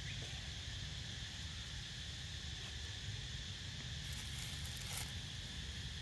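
Steady outdoor insect drone over a low background rumble, with a short rustle and crackle about four to five seconds in.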